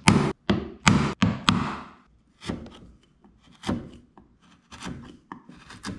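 Bench chisel cutting a dado into a pine board by hand: a series of sharp knocks, several close together in the first second and a half and then more spaced out, each followed by a short scraping shave of the wood.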